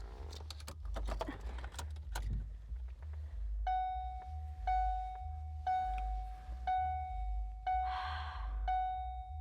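Keys jangling and clicking for the first couple of seconds, then the Ford Focus's electronic warning chime sounding once a second, six times in a row.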